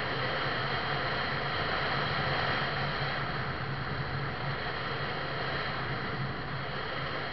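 Steady engine and road noise heard from inside a moving vehicle, a low hum under an even rushing noise.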